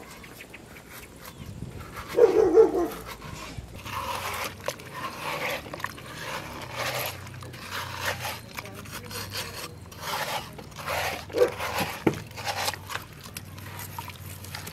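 Metal spoon scooping and scraping the flesh out of a hollowed watermelon: a run of short wet, crunching strokes every second or so. A short, loud animal call about two seconds in, and a couple of brief yips near the end.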